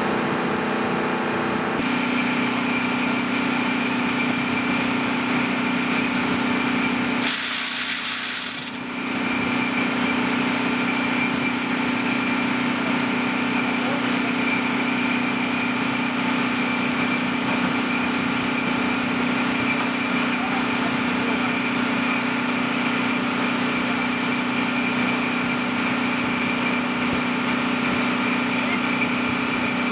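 Flight-line machinery running with a steady hum and a constant high whine. About seven seconds in a rush of hiss lasts about a second and a half.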